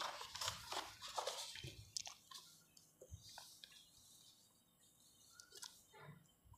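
Faint rustling and light taps of a paperback textbook page being turned and the book handled, mostly in the first two seconds.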